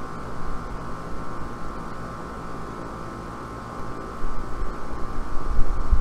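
Outdoor air-conditioning condensing unit with a scroll compressor running steadily: a fan-and-motor drone with a steady hum of several tones. A low rumble grows louder in the last two seconds.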